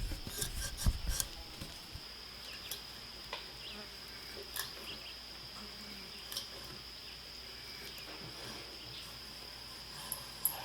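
Steady high insect drone, like crickets, with scattered sharp clicks and a few low knocks in the first two seconds.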